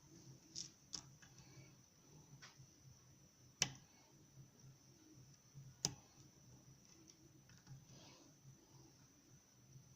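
Faint, scattered metallic clicks of a lock pick and tension wrench working the pins inside a challenge lock, with two sharper clicks about three and a half and six seconds in.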